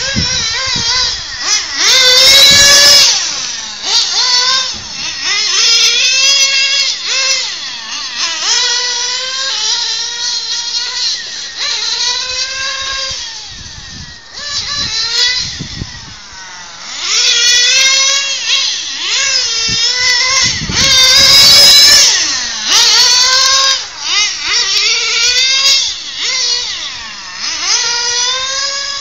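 Kyosho FW-05RR nitro touring car's small glow engine revving hard and backing off, over and over, as it laps the track. The pitch climbs on each straight and drops away into each corner. It is loudest twice, about two seconds in and again about twenty-one seconds in, as the car passes close.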